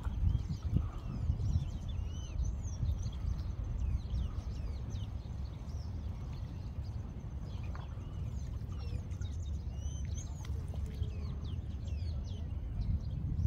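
Steady low rumble of wind and sea at a rocky shore, with small birds chirping in short high calls scattered over it.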